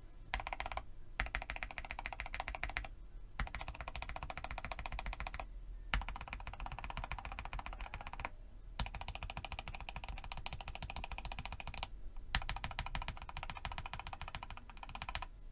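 Fast typing on a modded RK84 mechanical keyboard (lubed switches, foam and tape mod), a dense run of key clicks in bursts of a few seconds separated by brief pauses.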